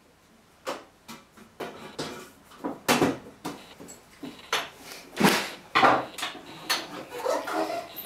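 Irregular taps, knocks and clicks as a toddler's hands bang on and fiddle with the plastic front of an LG front-loading washing machine.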